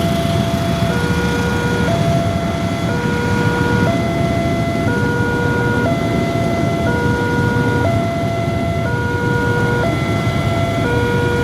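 Train horn sounding a steady two-tone hi-lo pattern, switching between a lower and a higher note about once a second, over a continuous low rumble.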